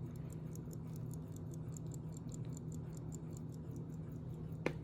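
Atlantic 21-jewel pocket watch ticking fast and evenly, about five ticks a second, a sign the movement is running. A steady low hum sits underneath, and one louder click comes near the end.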